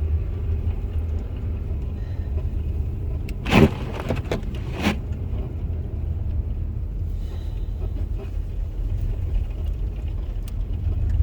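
Low rumble of a car driving slowly over snow, heard from inside the cabin. About three and a half seconds in there is a short loud squeak with a sliding pitch, and a fainter one about a second later.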